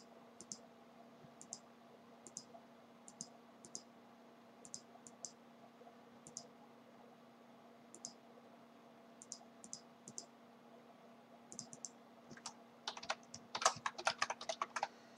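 Computer mouse clicking every second or so, often in quick pairs, then a quick burst of keyboard typing over the last two or three seconds. A faint steady hum runs underneath.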